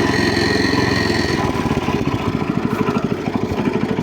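Walk-behind tractor's engine running, with a high whine over it that stops about one and a half seconds in; after that the engine idles with an even, rapid putter.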